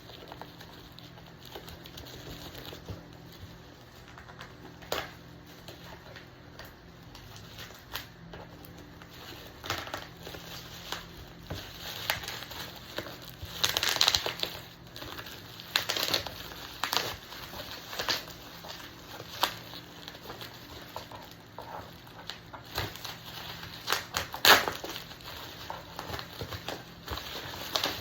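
Irregular crinkling and crackling, with scattered sharp clicks, over a faint steady low hum.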